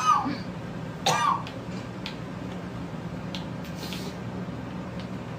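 A woman coughs twice, about a second apart, over a steady low hum.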